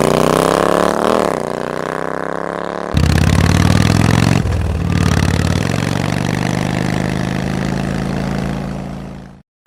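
An engine-like motor sound rises in pitch as if revving. It dips and climbs again about a second in, then runs steadily with abrupt changes of pitch, and cuts off suddenly just before the end.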